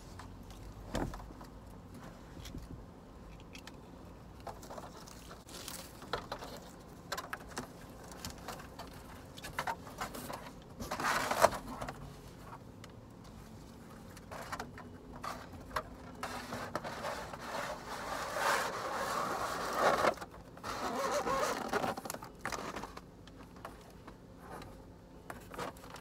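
Cardboard box being handled: flaps opened and rubbed, with rustling, scraping and scattered light knocks. The handling gets louder about eleven seconds in and again for a few seconds near the end.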